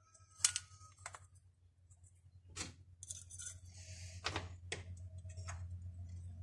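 Small metal and plastic parts of a gear-lever repair kit clicking and tapping as they are handled and fitted onto the shift rod: about five sharp clicks spread out, over a steady low hum.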